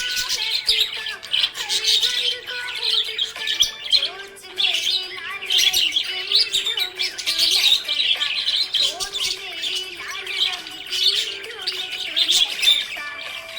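Budgerigars chirping and chattering continuously in a busy, unbroken stream of short high chirps mixed with warbling notes.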